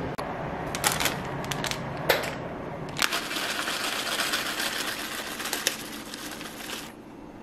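Clear plastic bag crinkling as chopped green onions are shaken out of it: a few clicks and rustles first, then about four seconds of steady crinkling that stops suddenly near the end.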